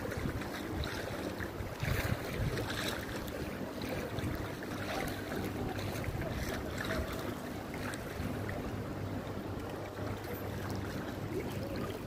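A steady engine hum under a continuous rushing noise, with wind buffeting the microphone now and then.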